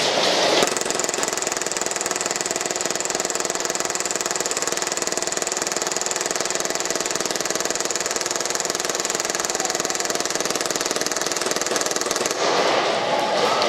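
Action Army AAP-01 gas blowback airsoft pistol firing one long, unbroken full-auto burst, a very fast steady rattle of shots and slide cycling that cuts off abruptly near the end.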